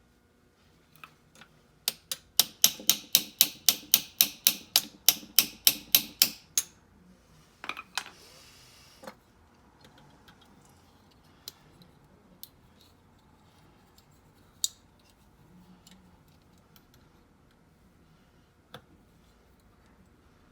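A rapid run of about sixteen mallet taps on metal, three or four a second, knocking at a stuck part on an old key machine during a motor swap. They are followed by a brief scrape and a few scattered clinks.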